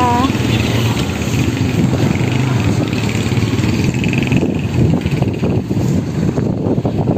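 Street traffic with a motorcycle engine running close by over a steady low rumble.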